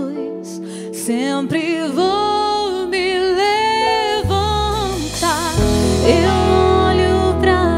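A gospel worship song: a woman singing a slow melody with held, wavering notes over instrumental backing, with deep bass notes coming in about halfway.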